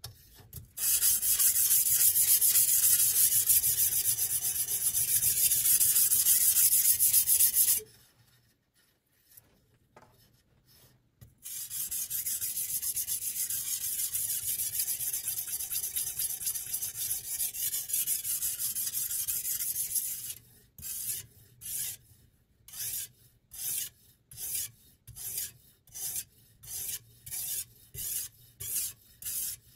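Sharpening stone on a guided-rod knife sharpener's arm scraping along a chef knife's edge. It runs continuously for several seconds, pauses, runs again more quietly, then becomes short separate strokes at about two a second.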